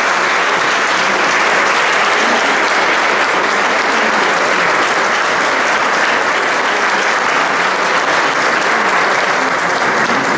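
A church congregation applauding steadily: a long, even round of many people clapping.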